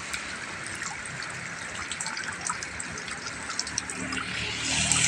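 Steady afternoon rain falling, with many small drops ticking through the hiss; it swells louder near the end.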